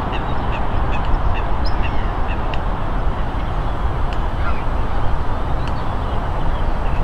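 Waterfowl on the lake calling in a quick run of short calls, about three a second, which stops a little under three seconds in, leaving a few scattered calls. A steady rushing noise runs underneath.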